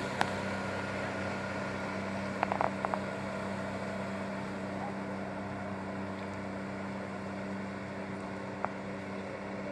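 A pontoon boat's motor running at a steady pitch while under way, with water and wind noise. A few sharp clicks come about a quarter second in, in a quick cluster around two and a half to three seconds in, and once more near the end.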